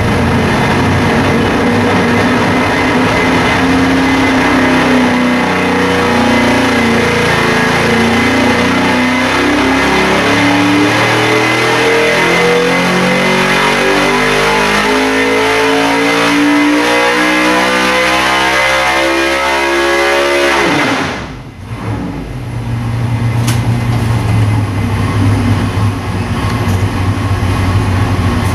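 A 438 cubic inch small-block Ford V8 on an engine dyno makes a wide-open-throttle pull on just motor, without nitrous. It runs steady for a few seconds, then its note climbs smoothly in pitch for about sixteen seconds up to around 8,200 rpm. It cuts off abruptly as the throttle closes and drops back to a lower, steady running.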